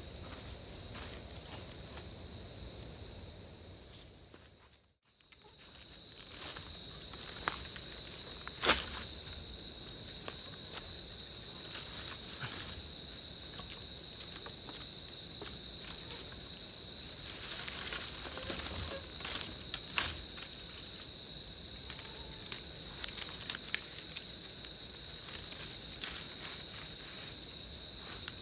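A steady, high-pitched insect chorus drones through the forest, fading out briefly about five seconds in and returning. Over it come scattered snaps and crackles of dry twigs and leaf litter being handled, the sharpest a little under nine seconds in and a cluster later on.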